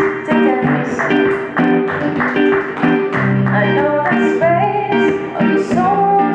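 Acoustic guitar played in a quick run of plucked notes, with a woman singing over it; her held, bending vocal line comes forward about two-thirds of the way in.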